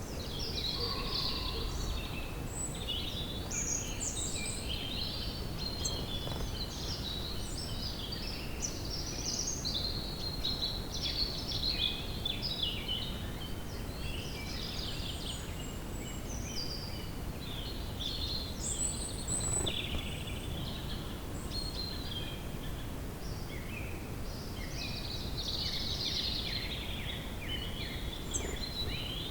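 Woodland bird chorus: many birds chirping and trilling over one another without a break, over a steady low background hiss.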